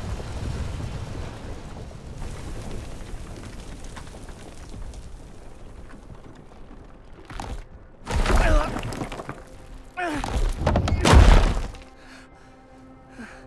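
Sound effects of destruction: a low rumble under drifting dust and rubble, then heavy crashes with shattering and breaking debris about seven, eight and ten seconds in, the last one the loudest. Soft music comes in near the end.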